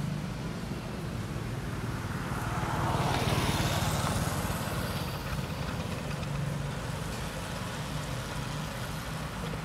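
A motor vehicle passing on the road. Its engine and tyre noise swells to a peak about three to four seconds in, then fades, over a steady low engine hum.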